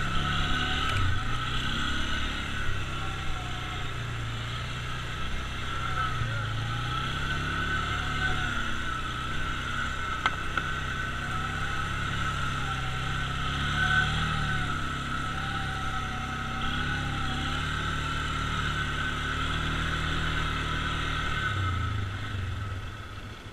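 ATV engine running under way, its pitch rising and falling with the throttle over a steady high whine; the engine note drops off near the end.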